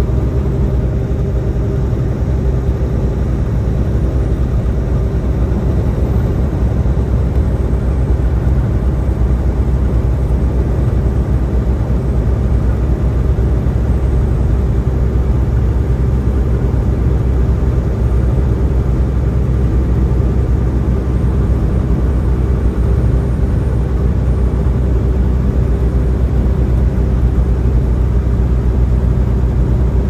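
Semi truck's engine and road noise droning steadily inside the cab while driving, a constant low hum with no change in pitch.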